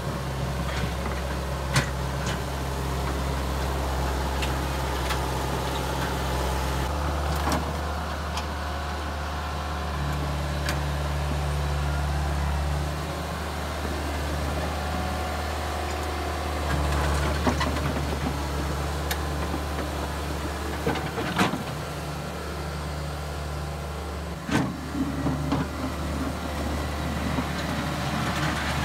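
John Deere 6410 tractor's diesel engine running under load as it works a rear box blade through mud and ice, its note shifting several times. A few sharp knocks stand out, about two seconds in and twice near the end.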